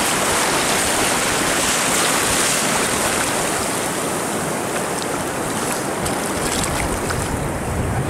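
Breaking surf and shallow foamy water washing in, with wind buffeting the microphone; a steady rush of noise that eases slightly in the second half.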